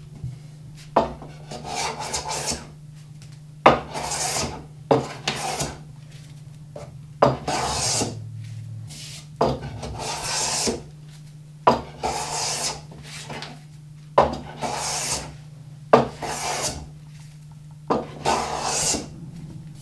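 Wooden hand plane taking shavings off a board in repeated strokes, about one every two seconds. Each stroke starts with a sharp click and goes on as a hiss while the newly set iron cuts a shaving.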